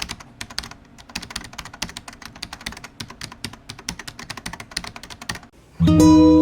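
Rapid keyboard typing, a fast run of clicks, that stops about five and a half seconds in. Then a loud acoustic guitar chord is strummed and rings on as music begins.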